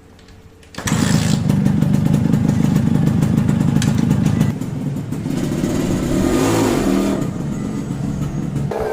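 Motorcycle engine catching about a second in and running steadily, dropping to a quieter idle about halfway through; it is being run on flushing oil to clean out a slipping clutch.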